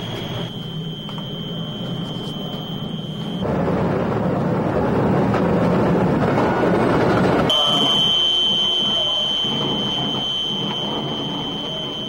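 Electric arc furnace plant noise during oxygen and carbon injection: a steady high-pitched whine, and for about four seconds in the middle a loud rushing roar that cuts off abruptly, after which the whine returns.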